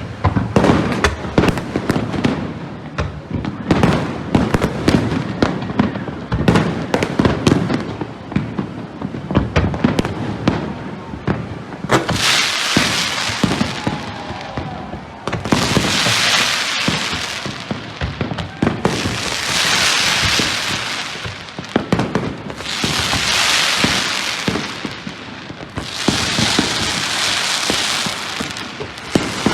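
Fireworks display: a rapid string of sharp bangs for about the first twelve seconds. Then come five long hissing, crackling bursts, one every three to four seconds.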